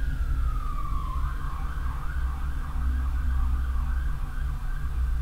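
A siren wailing: one tone that slides down, swings back up about a second in and then holds, over a steady low rumble.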